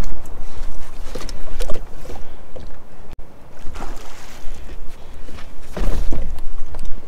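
Water splashing and sloshing beside a fishing kayak as a hooked fish thrashes at the surface, in irregular bursts about a second, four seconds and six seconds in, over a steady low rumble.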